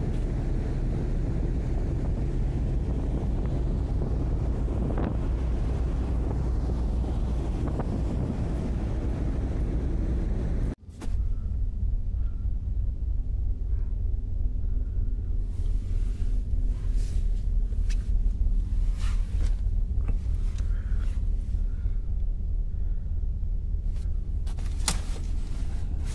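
Wind buffeting the microphone on the open deck of a car ferry underway, over the ship's low rumble. After a sudden cut, the steady low drone of the ferry's engines heard inside a passenger cabin, with a few light handling clicks.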